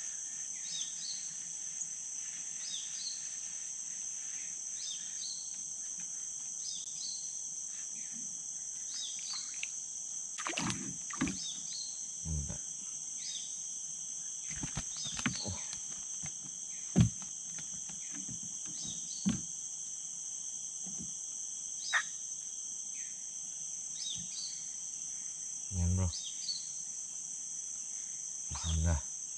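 Steady, high-pitched insect chorus from the riverside forest, with a short chirp repeating about once a second. Scattered sharp clicks and knocks come from handling the catch and tackle in a wooden boat, with two low thumps near the end.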